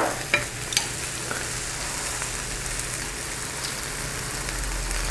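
Marinated pork riblets and an egg sizzling steadily on a hot indoor electric grill plate, with a few light clicks in the first second.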